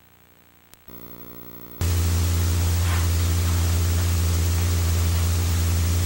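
Videotape playback noise: after a quiet start, a loud steady low hum with hiss cuts in suddenly about two seconds in and holds unchanged.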